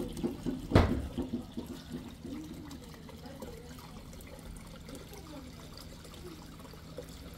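Hot-spring water running and sloshing in an outdoor footbath, with splashing in the first couple of seconds and one sharp hit about a second in, then a steady flow.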